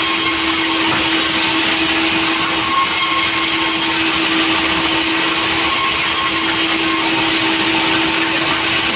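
Sawmill saw running steadily: a loud, even rushing noise with a constant hum that does not change.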